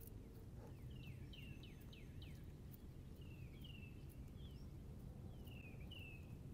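Faint songbird calls: a quick run of about five falling chirps about a second in, then a few slurred high notes, over a low steady outdoor background hum.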